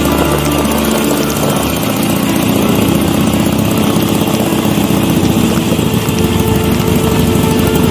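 Motorcycle engine running steadily at low speed while the bike rolls along slowly.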